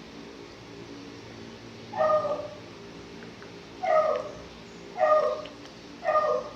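A dog barking: four short barks, each dropping in pitch, the first about two seconds in and the rest roughly a second apart, over a faint steady low hum.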